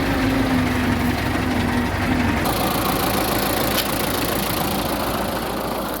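MTZ-50 tractor's four-cylinder diesel engine running at idle. About two and a half seconds in the sound changes abruptly: the low steady tone drops out and a brighter, noisier engine sound takes over.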